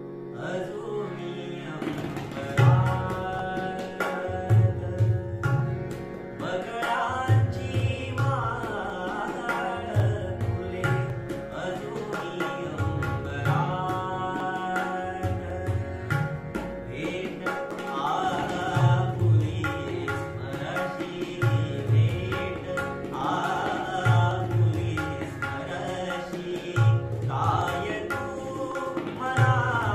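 A male voice singing a Marathi bhavgeet over harmonium and tabla. The harmonium holds steady tones, and the tabla's deep bass strokes stand out every second or two.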